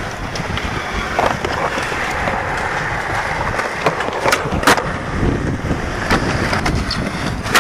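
Skateboard wheels rolling on concrete, with two sharp clacks of the board about half a second apart a little past four seconds in, and a weaker clack about a second in.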